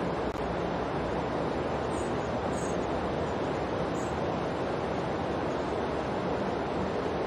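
Steady rushing noise, even in level with no swells or rhythm, used as the masking layer of a subliminal audio track.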